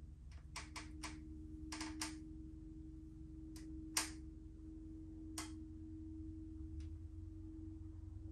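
Scattered light clicks and taps of a paintbrush against a small hand-held palette as paint is picked up and mixed, about nine in all, the sharpest about four seconds in. A faint steady hum runs underneath.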